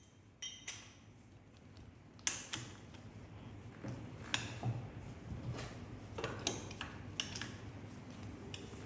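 Scattered light metallic clicks and clinks of transmission parts and tools being handled, a dozen or so at uneven intervals over a low steady hum.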